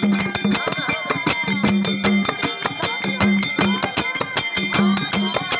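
A woman singing a Kannada folk song, with small hand cymbals clashing in a fast, steady rhythm along with other percussion.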